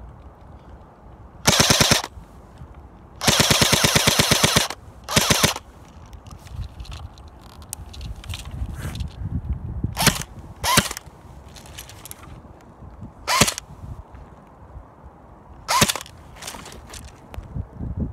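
Airsoft gun firing on full auto: three rapid bursts in the first six seconds, the longest about a second and a half, then several single sharp cracks spaced a few seconds apart.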